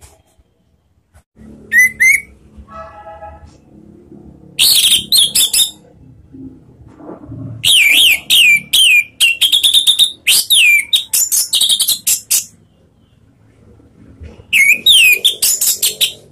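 Orange-headed thrush singing: four loud bursts of rapid whistled notes, many of them slurring downward, with the longest run in the middle.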